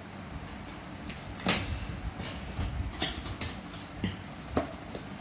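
A cardboard box being torn open by hand: about five short cracking, tearing sounds, the sharpest about one and a half seconds in.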